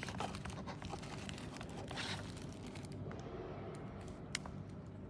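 Fingers rubbing and scratching over the fabric mesh grille of an Asaki APS-4015 portable Bluetooth speaker, a rustle full of small scratchy clicks that eases off after about three seconds. A single sharp click follows as a button on top of the speaker is pressed.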